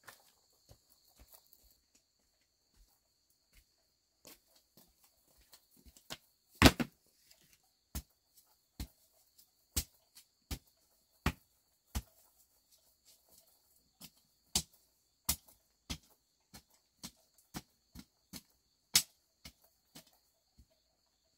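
Footsteps on hard ground, one sharp step about every three-quarters of a second, with one much louder thump about a third of the way in. Insects trill steadily and faintly behind.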